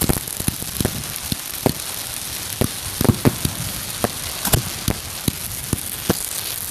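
Fireworks going off: a steady crackling with irregular sharp pops and bangs, several in a second at times.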